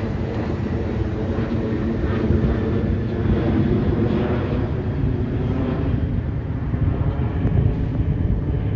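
Passenger train going by with its diesel locomotive running steadily: a loud, continuous rumble.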